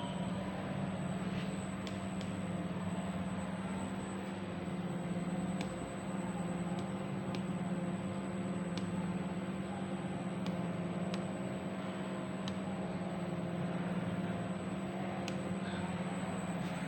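A machine running steadily with a low hum and a thin high whine, with faint sharp ticks every second or two.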